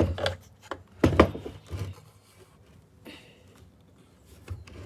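A few sharp knocks and some rubbing from parts of a partly dismantled Bosch hammer drill being handled and worked at by hand. The loudest knock comes about a second in.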